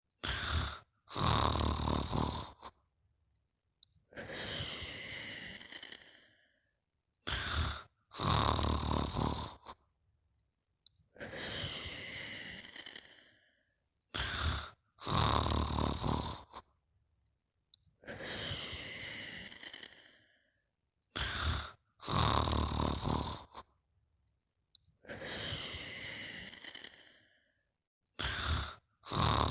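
Snoring in a very regular cycle about every seven seconds: a short snort and a longer, loud snoring breath in, then a softer, longer breath out that fades away. The cycle repeats four times.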